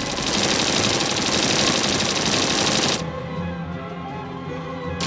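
Dense, rapid rattling sound effect for about three seconds. It cuts off and music with held notes carries on, then the loud rattle comes back at the very end.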